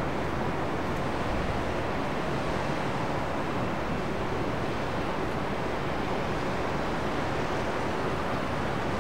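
Jet airliner engines making a steady rushing roar, even throughout.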